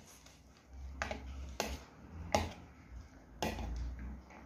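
Metal spoon stirring chopped fruit in a plastic bowl, knocking the bowl with about four sharp clicks.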